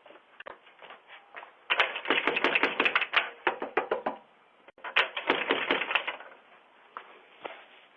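Two bursts of rapid clattering taps and knocks, a few seconds long each, heard thin through a doorbell camera's microphone.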